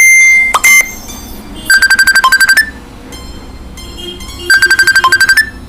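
Phone notification tone being previewed: a fast trill of electronic beeps, about a dozen in a second, played twice. It opens with the tail end of a steadier high beep tone.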